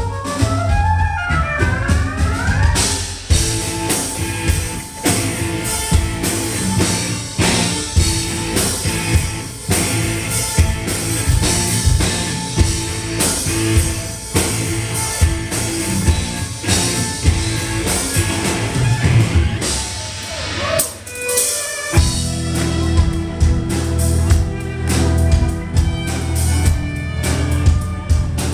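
Live instrumental metal played loud through a club PA: violin leading over electric guitar, bass guitar and a drum kit. Near the start a few notes slide upward. About two-thirds of the way through, the bass and drums drop out for a moment, then the full band crashes back in.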